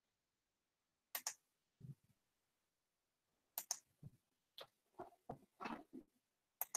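Faint scattered clicks and short rustles, a few per second from about a second in, with dead silence between them.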